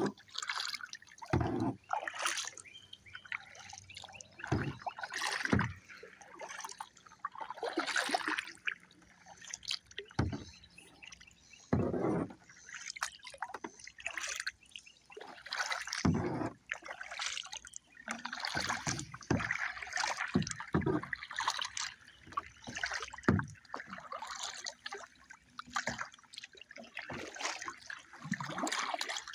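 Kayak paddle strokes in calm lake water: the double-bladed paddle dipping and pulling, with irregular splashes and water dripping and trickling off the blades every second or two.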